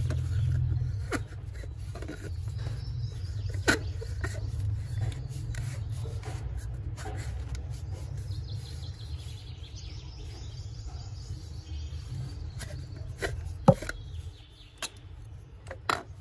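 Scattered plastic clicks and knocks as the jar and base of a portable mini blender are handled and fitted together, the loudest sharp click about three-quarters of the way through. A steady low rumble runs underneath and weakens shortly before the end.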